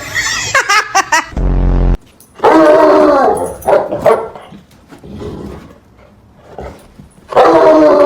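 Two dogs barking, yipping and whining in rough play, in several loud outbursts with quieter gaps between them. A short, loud low rumble comes about a second and a half in.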